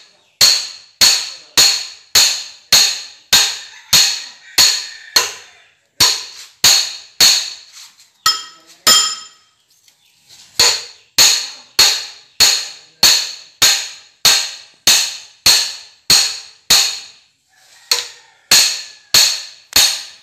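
Repeated hammer blows on steel parts inside a wheel loader's transmission case as a gear and shaft assembly is driven into place, about two sharp ringing strikes a second. The blows pause briefly about six seconds in, and again around eight seconds in, where a few lighter metal clinks are heard.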